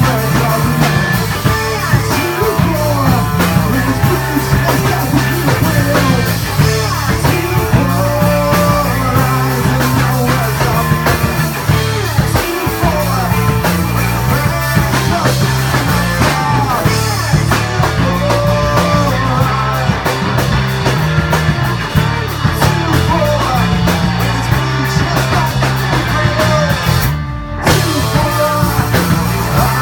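Live rock band playing loud, with electric guitar, bass guitar and drum kit. The guitars and cymbals drop out for an instant near the end.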